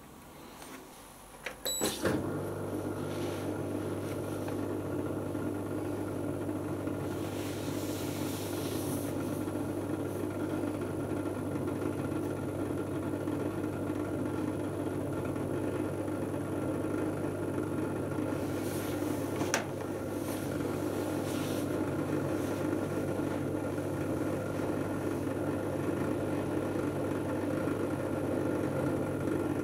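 Hotpoint Aquarius+ FDW70 dishwasher starting its cycle: a few clicks, then its pump motor starts about two seconds in and runs with a steady hum. A single sharp click comes about two-thirds of the way through.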